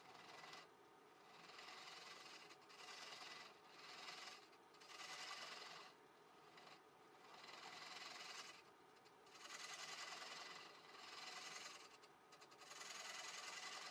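Faint sound of a gouge cutting the spinning base of a she oak bowl on a wood lathe. Shavings peel off in about ten short passes, each around a second long, with brief pauses between them.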